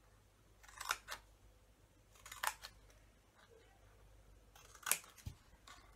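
Scissors snipping through cardstock while cutting notches in a box lid: three short, separate snips.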